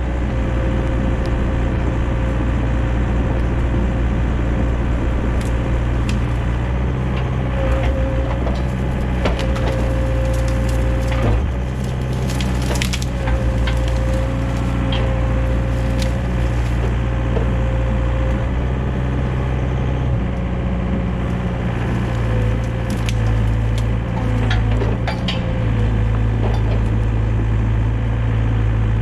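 Excavator's diesel engine running steadily under load with a faint steady whine, over repeated cracks and snaps of brush and branches being crushed and broken.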